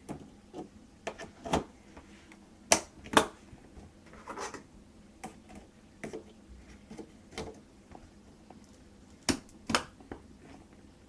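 RAM sticks being handled and pressed into a motherboard's memory slots: scattered light plastic clicks and knocks, with two pairs of sharp snaps, one about three seconds in and one near the end, as the slots' retention latches close.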